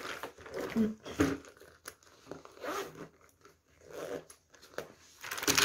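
Nylon fabric of a zippered marker case rustling as it is handled, then its zipper pulled open near the end in a short rasp, the loudest sound here.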